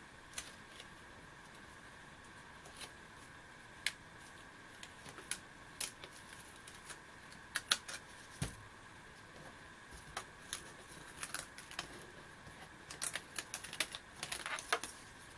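Scattered light clicks and ticks of a hand weeding tool picking small cut cardstock pieces off a sticky Cricut cutting mat, with a quick flurry of them near the end.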